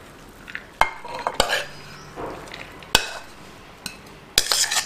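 Shredded carrot being tipped from a bowl into a pressure cooker: a soft rustle of falling shreds, broken by about five sharp knocks of bowl or spoon on the pot.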